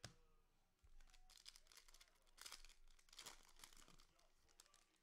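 Faint tearing and crinkling of a foil trading-card pack wrapper being ripped open, a run of short crackles after a click at the start.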